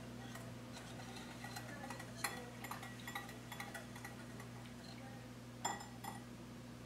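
Wire whisk ticking and clinking against a small glass bowl as a liquid dressing is whisked, in light irregular taps with a couple of louder knocks, one a little over two seconds in and one near the end.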